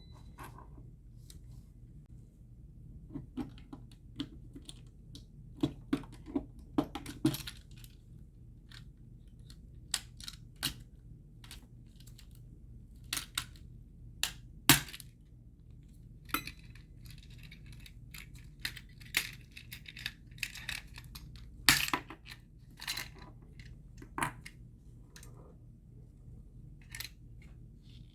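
Irregular clicks, snaps and clinks of a GFCI outlet's plastic housing and small metal parts being handled and pried apart, with a stretch of scraping about two thirds of the way through.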